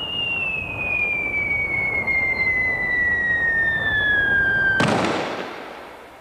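Cartoon falling-whistle sound effect: a long whistle gliding slowly down in pitch over a rumbling noise, ending about five seconds in with a sudden crash as a heavy book drops out of the chimney into the fireplace; the crash then dies away.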